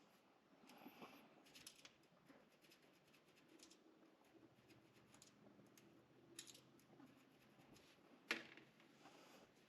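Faint clicks and light scraping from a Victorinox Swiss Army Knife being handled and cleaned, with one sharper click about eight seconds in.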